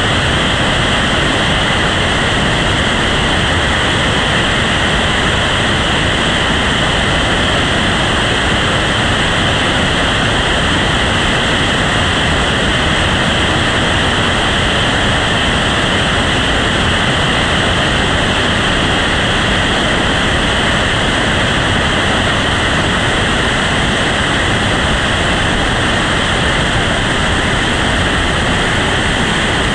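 Whitewater rapids rushing over and around boulders: a loud, steady, unbroken rush of water.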